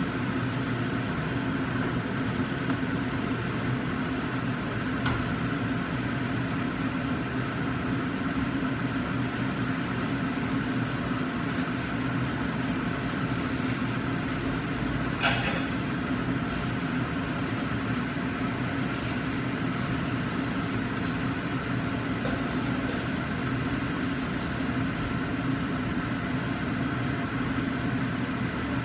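Steady fan-like hum with a low drone, as from a kitchen range hood's exhaust fan running over a gas burner. A faint click about 5 seconds in and a sharper knock about 15 seconds in.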